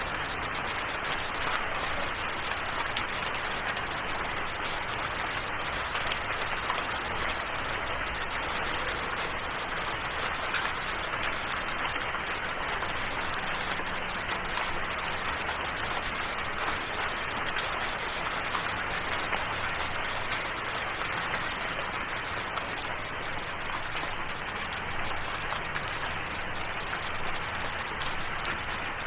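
Steady rain: an even, unbroken hiss of falling drops.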